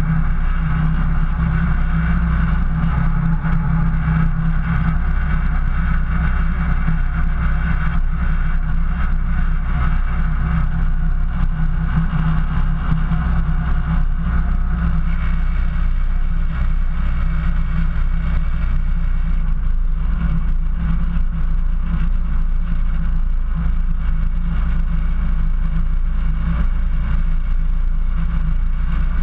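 Engine of a 4x4 off-road vehicle running steadily as it drives slowly through deep snow, heard close from the hood, with a strong low drone.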